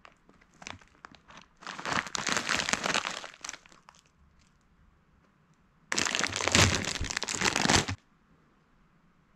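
Plastic snack bag of sesame crackers crinkling as it is handled, with a few light crackles at first, then about two seconds of loud crinkling. A second loud burst of crinkling about six seconds in, as the bag is opened, stops abruptly.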